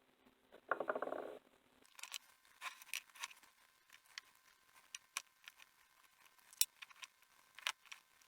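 A brief rattling burst about a second in. Then scattered, irregular clicks and taps as the small metal parts of an HO scale model locomotive are handled and taken apart.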